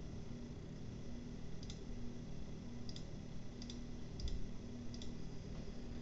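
Computer mouse clicking about seven times, single sharp clicks and a couple of quick pairs, over a faint steady low hum.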